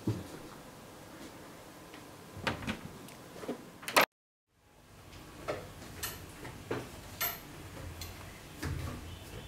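Footsteps and small knocks in a quiet house, with the click and knock of a door being opened, the loudest sound, about four seconds in. A sudden half-second of dead silence follows, then more scattered footfalls as she goes down a staircase.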